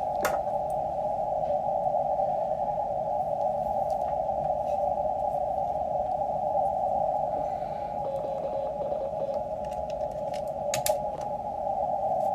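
Receiver band noise from a QRP Labs QMX+ shortwave transceiver on the 17 m band: a steady hiss squeezed by the narrow CW filter into a mid-pitched rushing tone, with no clear signal standing out of it. A sharp click comes just after the start and two more near the end.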